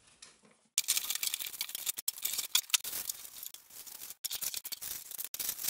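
Plastic packaging and bubble wrap crinkling and rustling as items are unwrapped by hand. It starts about a second in and comes in choppy stretches that cut off abruptly several times.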